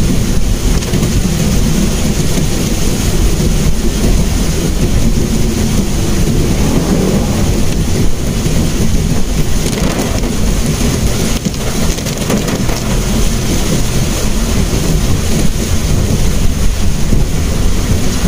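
Steady rain pattering on the roof and windshield of a moving Mitsubishi Mirage, heard from inside the cabin over the low rumble of the car driving on a wet road.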